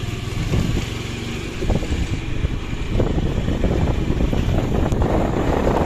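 Motorcycle running along a lane, heard from on the bike, with wind buffeting the microphone. The rumble grows louder about two and three seconds in.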